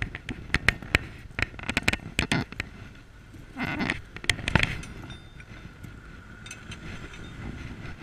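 Keys jangling and a steel motorcycle disc lock clicking and rattling as it is unlocked and pulled off the front brake disc: a quick run of sharp metal clicks over the first few seconds, then a brief rustle of handling.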